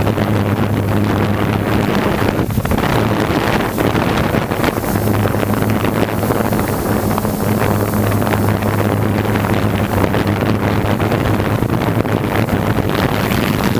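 Hexacopter's six DJI E310 motors and propellers humming steadily while it hovers, with wind rushing over the microphone.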